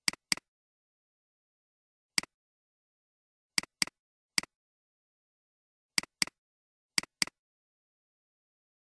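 Computer mouse clicks: four quick double-clicks and two single clicks, sharp and evenly matched, with silence between them. They come as the file is opened and words are selected for editing.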